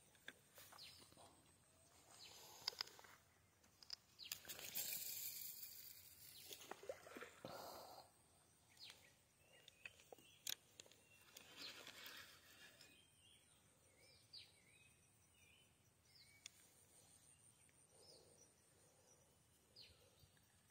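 Faint outdoor ambience with scattered short, falling bird chirps through the second half. A stretch of rustling and a few sharp clicks in the first half.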